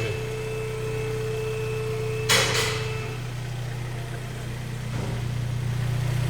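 Car engine idling steadily with a low exhaust drone. A short hiss cuts in about two seconds in.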